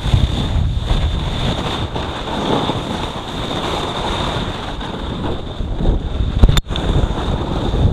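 Wind buffeting the camera microphone over the hiss of a splitboard sliding down snow, a steady rushing noise with heavy low rumble. A sharp click and a brief dropout come about six and a half seconds in.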